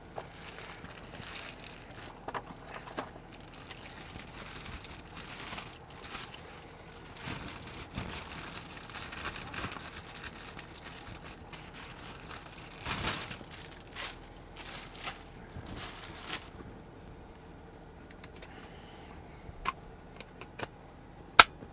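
Clear plastic bag crinkling and rustling as a Mac Tools cordless ratchet is pulled out of it. Then, near the end, a few sharp clicks as the battery pack is fitted to the ratchet, the last one the loudest.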